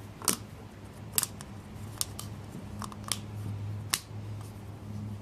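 Handling of the plastic oil filter cap while a new O-ring is worked onto it: about five sharp clicks spread over the few seconds, over a steady low hum.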